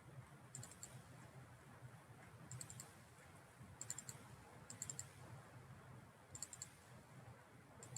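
Faint computer mouse clicks in short quick clusters, six times, while browsing folders, over a low steady hum.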